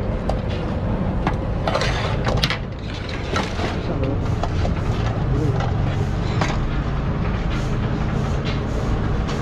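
Busy street ambience: a steady low traffic rumble, overlaid with sharp clicks and knocks that come in a louder cluster about two seconds in and then recur every half second or so, with faint voices.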